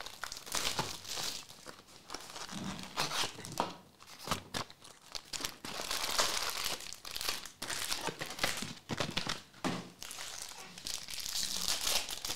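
Shiny trading-card pack wrappers being handled and torn open, crinkling and ripping almost continuously with sharp crackles.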